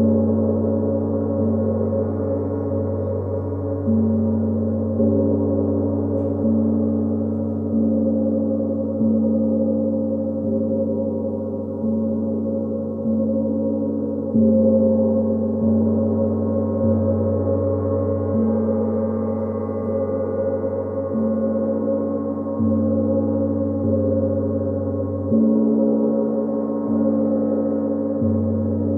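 Gong struck again and again, about once every second and a half, each stroke renewing a deep, ringing wash of tones before the last has died away, the tones shifting a little from stroke to stroke.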